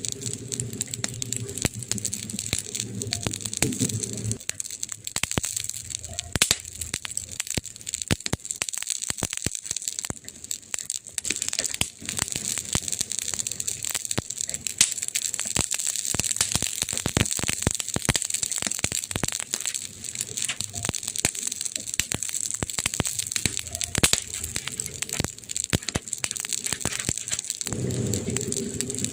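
Campfire burning, with dense crackling and sharp pops from the burning wood over a steady hiss. A low steady hum runs beneath it for the first four seconds and again near the end.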